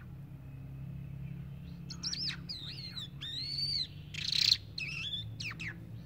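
A caged songbird singing: after a quiet start, a run of varied whistled and warbling notes that rise and fall, begins about two seconds in, with a louder, harsher note near the middle. A steady low hum lies underneath.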